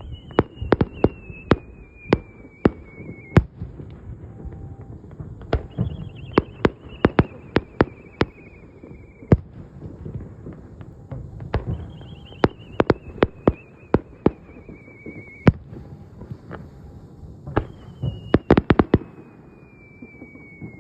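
Aerial fireworks going off in an uneven series of sharp bangs, with a whistling tone that glides down in pitch for a few seconds, four times.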